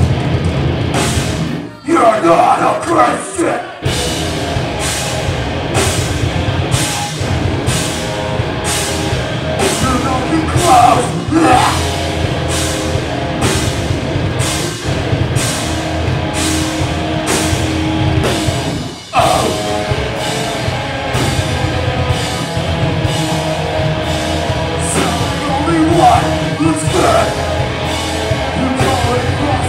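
Heavy rock band playing live: distorted electric guitars and bass over a drum kit keeping a steady beat, with vocals coming in at intervals. The band stops short about two seconds in, hits a few accents, and drops out again briefly about two-thirds of the way through before carrying on.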